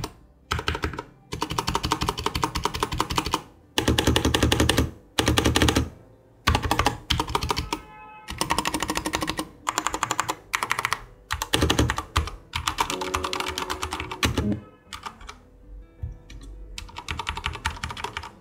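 Typing on a Dareu A87 mechanical keyboard with Cherry MX Red linear switches and double-shot PBT keycaps. Runs of rapid keystroke clatter come in bursts with short pauses between them, and there is little rattle, even from the stabilized keys.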